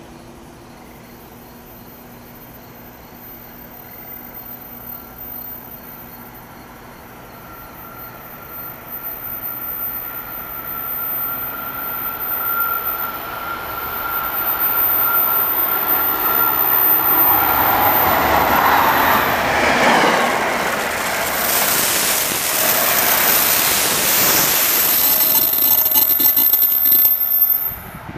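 NJ Transit train hauled by an ALP-46A electric locomotive with Comet passenger cars, approaching at speed with a steady high tone. It grows louder over about fifteen seconds, then passes close by for about ten seconds with the rush of wheels on rail. The sound drops off suddenly just before the end.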